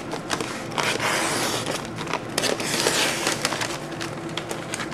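Heavy sewn open-mouth paper sack being cut open with a knife and a flap of its paper pulled back, making irregular crackling and crinkling with scattered sharp clicks.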